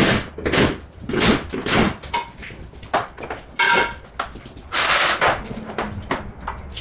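Irregular knocks, clatter and rattles of car parts and hand tools being handled during a car teardown, with a short metallic ring a little past halfway.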